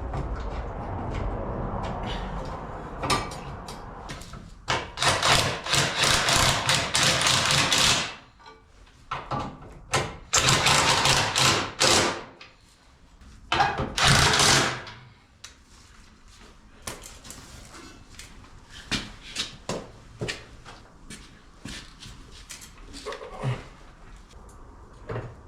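Bracket bolts being run onto a Jeep's rear bumper mounts with a power tool, in three loud bursts of a few seconds each, on rough threads that need a tap and die run through them. Scattered light metal clicks and knocks follow.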